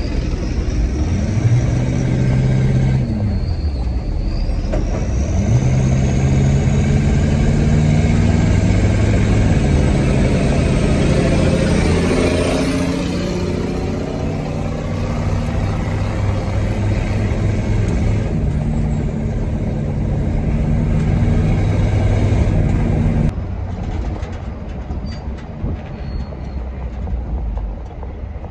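Truck engine running under way on the road over steady road rumble, its pitch climbing and falling back several times. About five seconds before the end the sound drops suddenly to a quieter, duller rumble.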